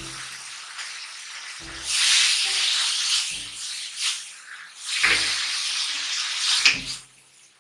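Diced boiled potatoes and spice masala sizzling in a wok over a high flame as they are tossed and stirred with a spatula, frying until the masala dries onto them. The sizzle rises and falls in surges, with a knock of spatula or wok every second or so. It dies away about seven seconds in.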